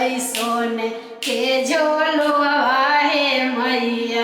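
A woman singing a folk devotional song to the mother goddess unaccompanied, drawing out the closing words on a long held note in the second half.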